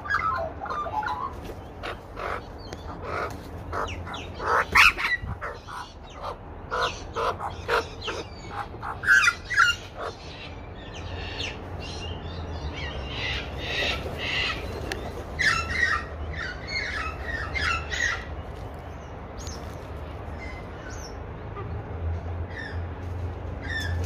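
Australian magpies calling: many short calls in quick succession during the first ten seconds, then scattered clusters of calls that grow sparser toward the end.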